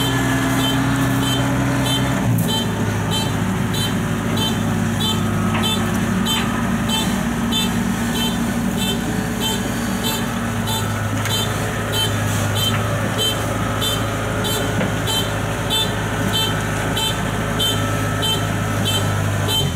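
Kubota combine harvester's diesel engine running steadily, its pitch dropping about two seconds in, with a warning beeper sounding about twice a second.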